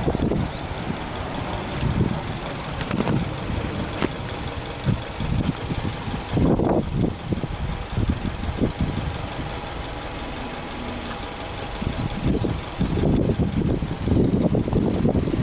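Subaru Legacy Touring Wagon's EJ20 flat-four boxer engine idling steadily with the bonnet open, with no revving. Uneven low gusts of wind buffet the microphone over the top, loudest about six seconds in and again near the end.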